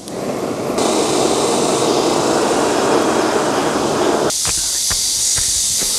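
Water from a garden hose spray nozzle rinsing a pig's head: a steady rushing spatter that cuts off suddenly about four seconds in. A steady high hiss with a few faint knocks follows.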